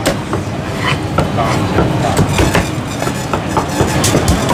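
Cleaver chopping roast goose on a wooden chopping block: irregular sharp knocks, a few louder ones about a second in and near the end, over a steady low rumble.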